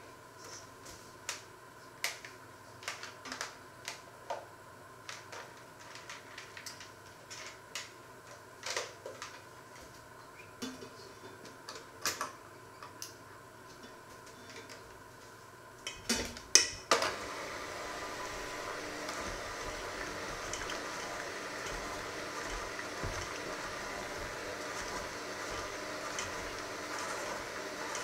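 Scattered light clicks and taps, then a few loud clacks about sixteen seconds in, after which a hand-held electric mixer with dough hooks runs steadily, mixing flour, milk and yeast in a stainless steel bowl.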